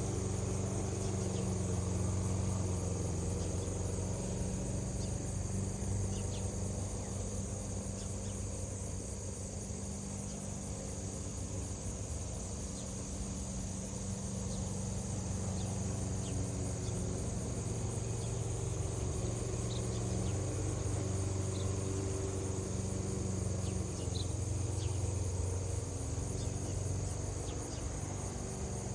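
Steady chorus of insects, crickets or similar, trilling without a break, over a steady low hum.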